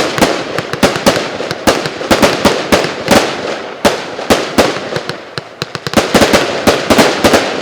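A 100-shot consumer fireworks cake of 0.8-inch tubes firing: loud, irregular bangs, several a second, over a steady crackle. The last bangs come near the end, followed by a fading echo.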